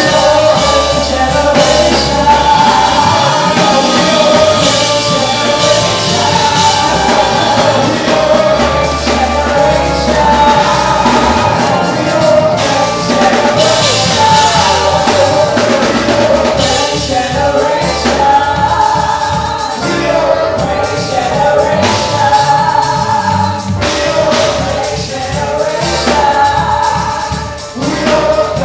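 Gospel praise-and-worship music: voices singing over a band with a steady bass beat.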